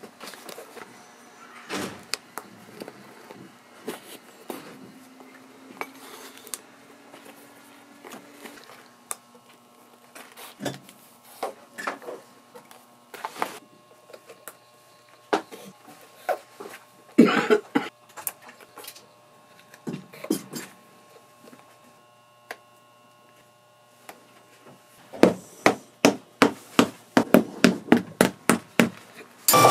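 Boot sole being stitched by hand with an awl and thread: scattered soft clicks, rustles and thread pulls. Near the end comes a fast run of sharp knocks, about three or four a second.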